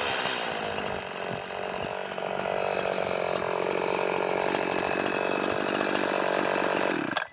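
Echo CS-4910 two-stroke chainsaw engine running steadily, then stopping abruptly near the end.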